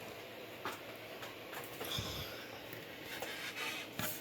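Scattered light clicks and knocks of handling noise, with a duller thump about two seconds in and a sharper knock near the end.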